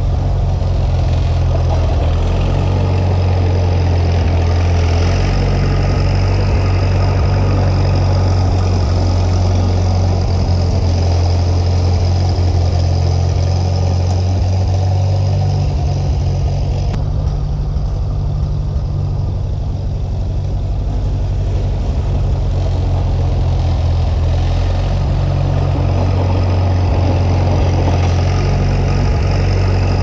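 Farmall 450 tractor engine running steadily under load, a deep engine hum. The higher part of the sound fades for a few seconds past the middle, then comes back.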